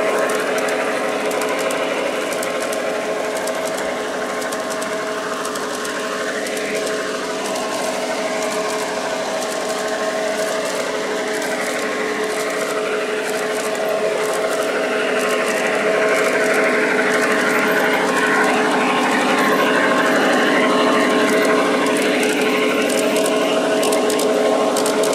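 LGB G-scale F7 A model locomotive running with a freight train, its motors and gearing giving a steady whine with the wheels ticking on the track. It gets louder about two-thirds of the way through as the train draws near.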